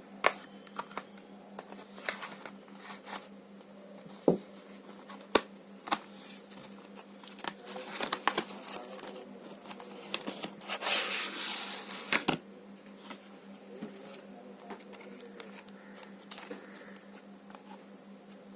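Hands handling packaging: scattered sharp clicks and taps, with a denser stretch of crinkling and rustling about eight to twelve seconds in, over a steady low hum.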